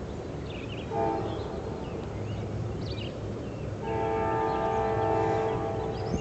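Train air horn sounding a chord: a short blast about a second in, then a long blast from about four seconds in. Together with the long blast just before, this fits the long-long-short-long signal a train sounds approaching a grade crossing.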